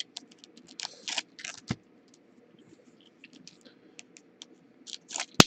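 Trading cards and their pack being handled: a run of quick scrapes and light clicks as the cards are slid and sorted, thinning out in the middle, with one sharp click near the end.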